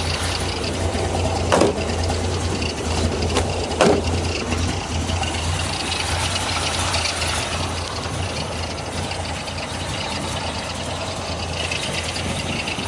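A 350 V8 with long-tube headers idling steadily through its exhaust, with two short sharp clicks in the first four seconds.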